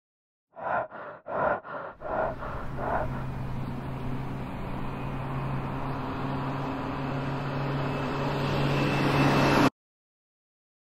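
Car engine: a few short pulses over about two seconds as it is started, then steady idling that grows a little louder and cuts off suddenly near the end.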